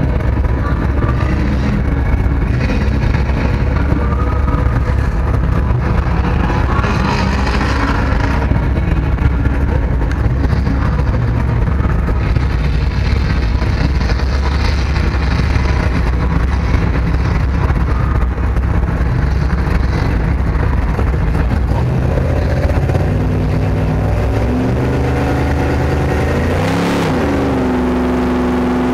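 Sherp ATV's diesel engine running loudly, heard from inside its cab as a steady drone. About 24 s in, the engine note changes and rises and falls as it is revved.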